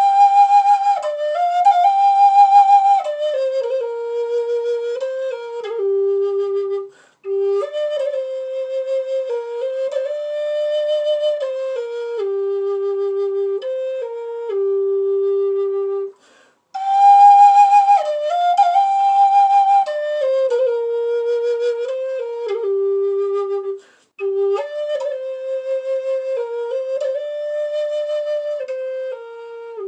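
Native American-style wooden flute playing a slow solo melody. It steps between held notes, with vibrato on the high ones, and pauses briefly for breath three times. The opening phrase comes back about halfway through.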